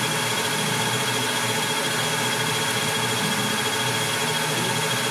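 Metal lathe running steadily with its chuck spinning, machining the muzzle end of a steel rifle barrel: an even motor and gear hum with a thin constant high whine.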